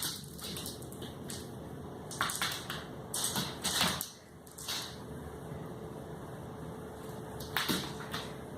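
Irregular short rustling and tapping noises, about half a dozen, over a steady low background hum.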